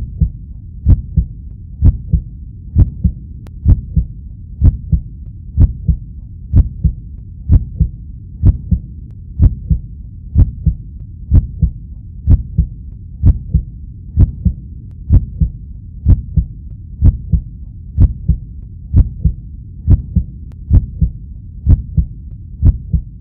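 A heartbeat, a steady double thump (lub-dub) about once a second, loud and low.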